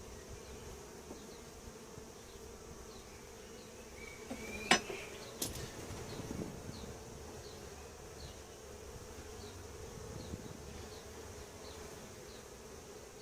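Honeybee colony humming steadily from the open hive. About five seconds in, a sharp click and a second lighter one as the metal hive tool strikes and scrapes the wooden frame.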